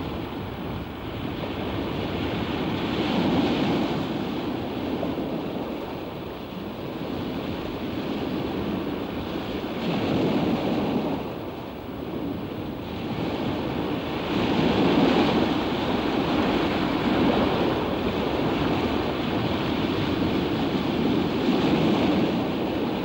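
Sea surf washing and breaking around rocks at the foot of sea cliffs. The wash swells up and eases off every few seconds as each wave comes in.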